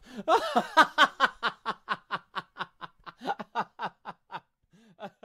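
A woman laughing in a long run of short, rapid 'ha' pulses, about four a second, pausing briefly and trailing off with a few more near the end.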